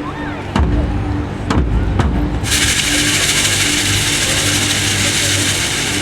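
High school marching band playing held low notes with a few drum hits, then a loud sustained hiss starting about two and a half seconds in that cuts off near the end. Low rumble of wind on the microphone lies under it.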